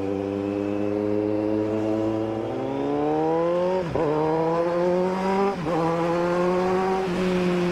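Kawasaki Z900 inline-four engine under the rider, running steadily at low revs, then pulling up through the revs. It drops sharply for an upshift at about four seconds and again a little after five and a half seconds, then settles to a steady cruise.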